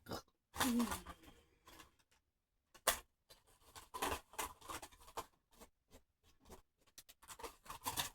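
Scentsy wax bars being handled and sorted: scattered light clicks, taps and rustles of the small plastic-packed bars, with a brief falling vocal murmur just under a second in.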